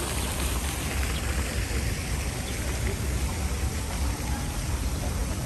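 Steady splashing rush of a park fountain's water jets falling into its basin, with a low rumble underneath.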